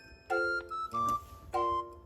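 Background music: a light, bouncy tune of short keyboard-like chords and a bell-like melody, about three notes a second.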